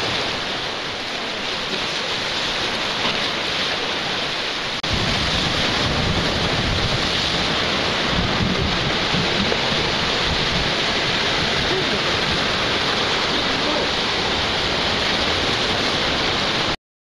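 Sea surf washing against the rocks of a breakwater, with wind on the microphone. About five seconds in it jumps louder and deeper, and it cuts off suddenly near the end.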